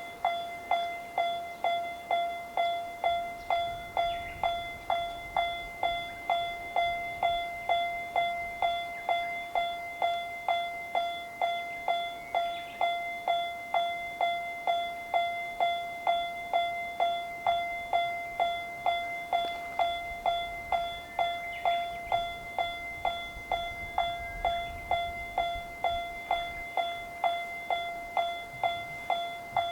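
Japanese railroad crossing alarm bell (カンカン) starting up and ringing in a steady, even rhythm of about two bright, ringing strokes a second. It signals that a train is approaching and the crossing is closing.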